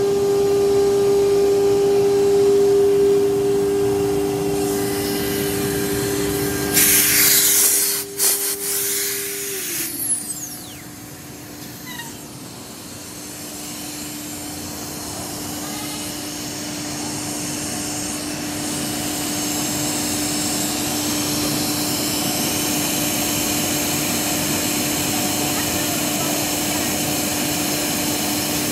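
CNC nesting router spindle running with a steady whine; a loud hiss of compressed air lasts about two and a half seconds, then the spindle whine falls away as it winds down for an automatic tool change. After that the machine noise builds gradually louder over a steady hum.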